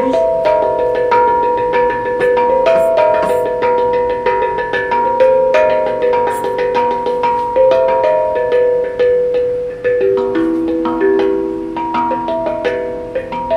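A tuned percussion instrument being played: a quick, steady run of struck notes, about four or five a second, each ringing on and overlapping the next, forming a melody over several pitches.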